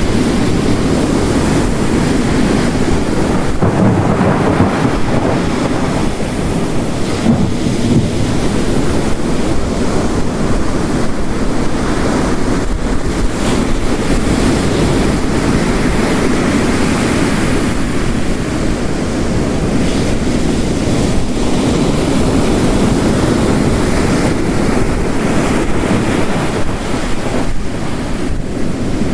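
Heavy rain mixed with ocean waves crashing on a shore. It is a dense, steady wash, with the surf swelling and easing a few times.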